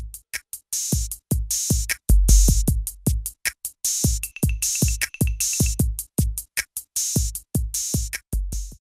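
Electronic outro music with a drum-machine beat: deep kick drums and crisp high cymbal hits, several a second. It stops suddenly just before the end.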